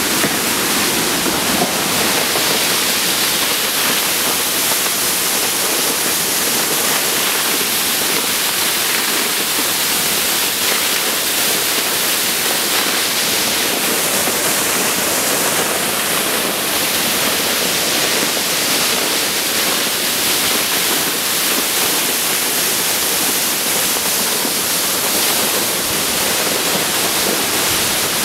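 Waterfall: water falling and splashing in a steady, loud, unbroken rush.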